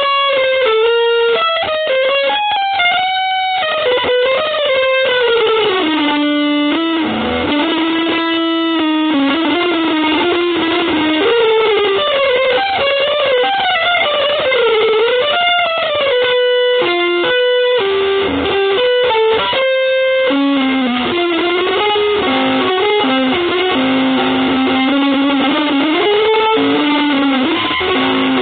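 Electric guitar playing a winding single-note improvised line that glides and bends between pitches, with a few short breaks around the middle.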